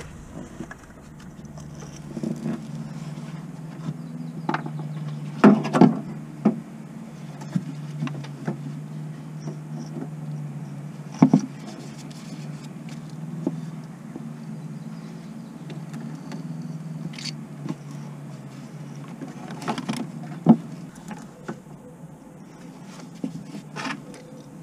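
Scattered clicks and knocks of hand work at a van's gearbox and clutch hydraulics, over a steady low hum.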